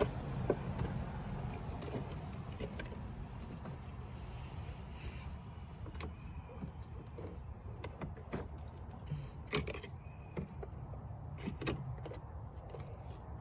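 Scattered metallic clicks and clinks of hand tools working on a stuck battery fastener in a car's engine bay, over a steady low rumble.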